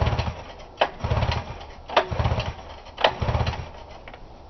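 Recoil starter cranking the 1978 Arctic Cat Pantera's 500 cc fan-cooled Suzuki two-stroke engine, four quick pulls about a second apart. Each pull starts with a click and is followed by a short whirring spin. The spark plugs are out, so the engine spins freely without firing while the cord is pulled to draw fuel into the carburettor float bowl.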